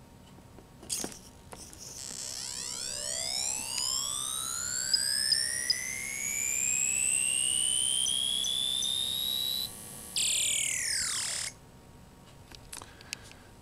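Electronic sound effect from a Lego-built War Machine weapon prop: a few clicks, then a pure whine that rises steadily in pitch for about eight seconds with a few short high blips partway through, then drops in a quick falling glide and cuts off.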